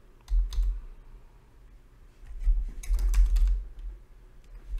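Computer keyboard keystrokes, each with a dull thump: two about a third of a second in, then a quick run of several keys near the middle.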